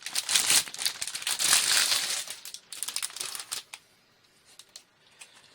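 Packaging crinkling and rustling as a motherboard is handled out of its box, dense at first, then thinning to a few faint ticks for the last couple of seconds.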